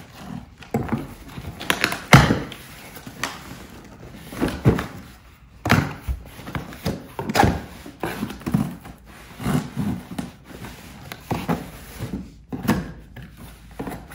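Cardboard shipping box being cut open and handled: irregular thuds, scrapes and rustles as the tape is slit and the flaps are pulled back, with the loudest knock about two seconds in.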